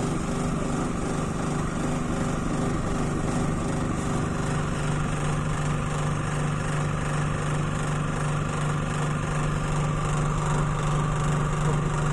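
Maksindo MKS-AYK05 electric vibratory flour sieve running steadily with a constant motor hum while sifting wheat flour through a 120-mesh screen.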